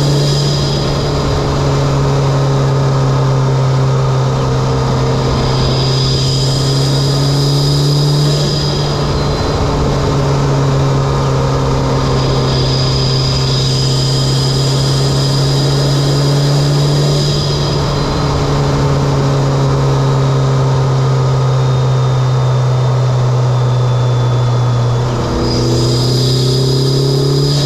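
Mitsubishi Lancer Evolution X's turbocharged four-cylinder engine running at fairly steady revs while driving, fitted with an aftermarket Injen intake and HKS exhaust. A high whistle with a hiss comes and goes about four times, and the engine note dips and shifts about 25 seconds in.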